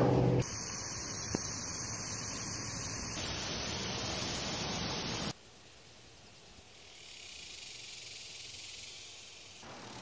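Loud white-noise static hiss that starts abruptly and cuts off just as abruptly about five seconds in, followed by a much fainter hiss.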